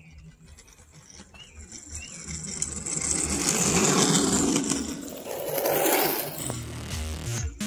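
Micro Mini Deluxe three-wheeled kick scooter's wheels rolling on asphalt with a scraping hiss, growing louder as the scooter approaches and passes close by, loudest about four and again about six seconds in.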